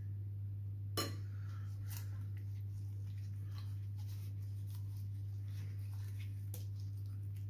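A metal spoon clicks sharply against a glass baking dish about a second in, followed by a few fainter clinks and soft rubbing as marinade paste is spread over whole sea bass by a gloved hand. A steady low hum runs underneath.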